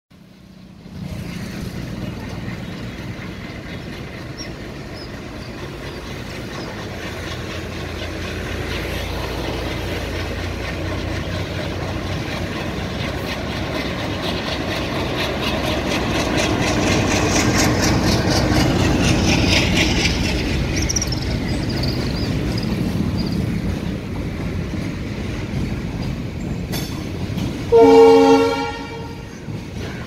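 An ALCO diesel freight locomotive's engine chugging as it pulls away, growing louder as it passes, with the freight wagons' wheels clicking over the rail joints. Near the end the locomotive sounds its horn once, a short, loud blast.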